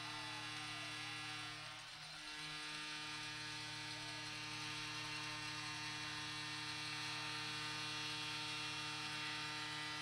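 Steady electrical mains hum and buzz with many evenly spaced overtones, dipping briefly about two seconds in.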